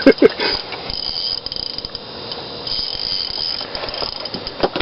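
Fishing reel's drag clicking in a steady, rapid ratchet as a hooked fish pulls line off the reel against light 4-pound line.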